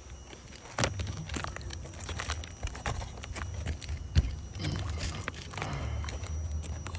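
Scattered hard clicks and knocks on a roof of tiles, the sharpest about a second in and again past the middle, over a low rumble.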